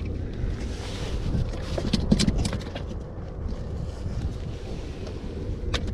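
Wind buffeting the microphone, with a cluster of sharp knocks and rattles about two seconds in and one sharp click near the end.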